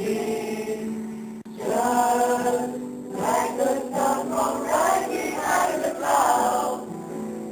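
Mixed choir of men and women singing under a conductor: a held chord for about a second and a half, a brief break, then the voices move on in shorter phrases.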